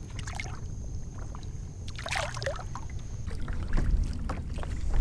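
Water splashing and sloshing at a kayak's side as a small snook is let go, with a few short splashes about two seconds in. Under it runs a steady low wind rumble on the microphone, which gets louder near the end.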